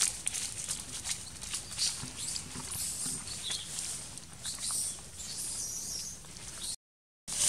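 Scattered crackling and rustling of dry leaf litter in short, irregular clicks over a faint high hiss, with a few faint chirps. The sound cuts out for about half a second near the end.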